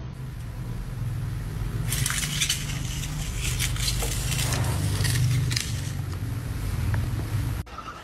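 Small plastic caster wheels of a low plant stand rolling across a tiled floor: a steady low rumble, with scraping and clattering in the middle few seconds. The rumble cuts off suddenly near the end.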